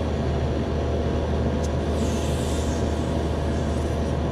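The reach-in cooler's hermetic compressor and condensing unit running with a steady hum as the refrigeration system pulls the box down after restart. A faint click and a brief faint hiss come near the middle.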